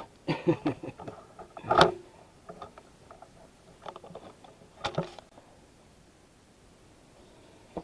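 Clatter and knocks of hard objects being handled: a busy run of short knocks, with the loudest one about two seconds in and another sharp knock about five seconds in, then quiet.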